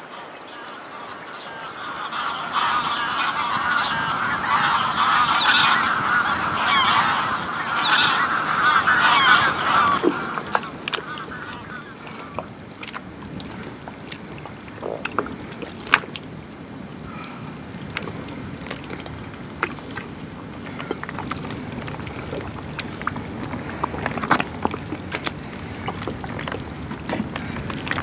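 A flock of geese honking in a dense chorus that swells and fades out about ten seconds in. After that come scattered wet clicks, pops and squelches of soft mud being pushed and sucked, with water sloshing.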